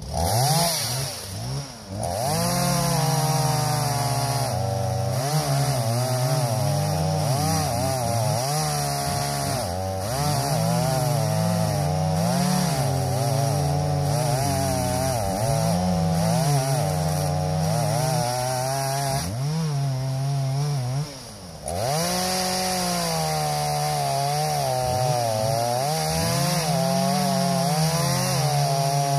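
Chainsaw running at high revs and cutting into a dead tree, its pitch wavering up and down as the chain loads in the wood. About two-thirds of the way through it drops briefly to a low idle, then revs back up and cuts on.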